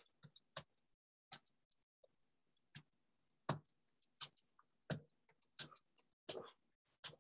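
Faint, irregular taps and soft thumps, about one or two a second, from a person's feet and body moving through a stepping heel-touch exercise.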